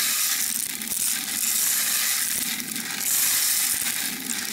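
Dry rice grains pouring out of a bag, a continuous gritty hiss that swells and eases a few times.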